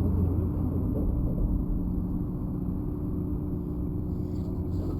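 Steady low rumble of road traffic with a constant droning hum.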